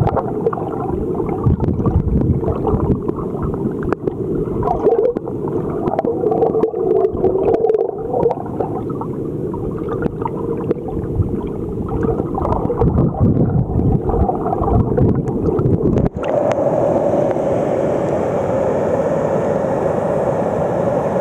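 Muffled gurgling and sloshing of stream water with many small clicks. About sixteen seconds in it changes suddenly to the steady rush of water pouring over a dam spillway.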